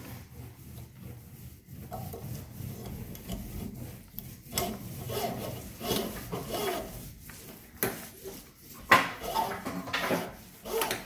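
Irregular rubbing and scraping as faucet parts and the pull-down hose are handled and fitted, with a few sharp knocks, the loudest about nine seconds in.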